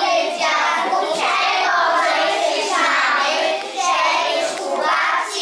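A group of young children singing together, in phrases with short breaks between them.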